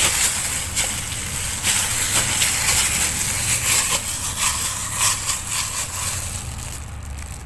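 Clear plastic gloves crinkling and rustling as hands knead and squeeze soft cookie dough in a plastic bowl: an irregular run of crackly rustles and small squishes.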